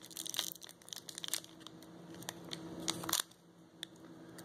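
Foil Pokémon trading card booster pack being crinkled and torn open by hand: a run of small crackles, with a louder one about three seconds in.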